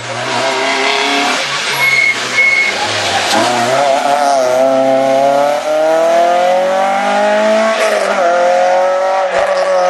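Rally car engine at high revs as it passes and drives away, its pitch climbing steadily as it accelerates, then dropping at a gear change near the end.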